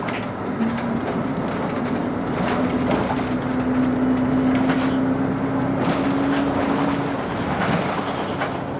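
Interior noise of a Scania CN113CLL city bus on the move: the diesel engine and road noise run steadily, with frequent rattles. About half a second in, a low whine comes in, rises slowly in pitch as the bus gathers speed, and fades out about seven seconds in.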